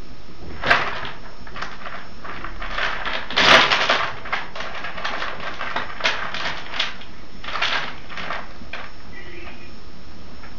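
Two fancy rats scuffling: a series of short, sharp scratching and scrabbling bursts, busiest and loudest about three and a half seconds in, as the rats fight to settle which one is dominant.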